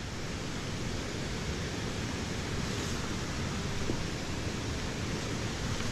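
Steady, even hiss of outdoor background noise with no distinct events in it.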